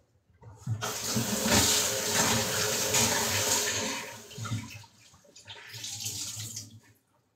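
Kitchen tap running into a sink for about three seconds, then turned on again briefly after a short pause.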